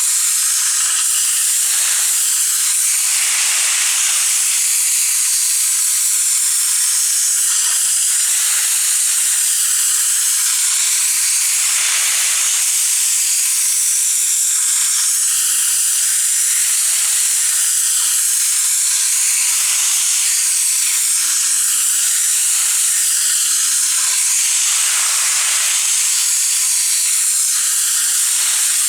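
High-pressure washer jet spraying, a loud, steady hiss, with a faint low hum coming and going underneath.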